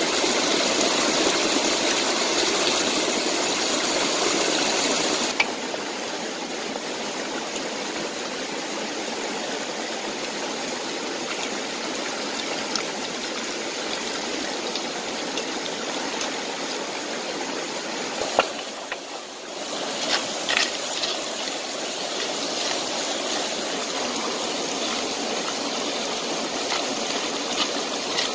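Stream water rushing over rocks. It is loud and close for the first five seconds, then drops suddenly to a softer, steady rush, with a few faint clicks from about two-thirds of the way in.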